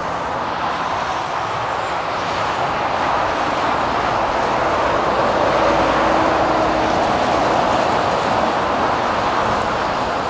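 Heavy traffic passing along a motorway: a steady hiss of tyres and engines that swells to its loudest about halfway through, as a vehicle goes by close, then eases off.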